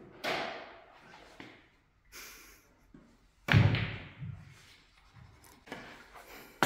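Pool shot: the cue tip strikes the cue ball with a sharp knock, a few lighter clicks follow, and about three and a half seconds in comes the loudest sound, a heavy thud that dies away in a couple of smaller bumps.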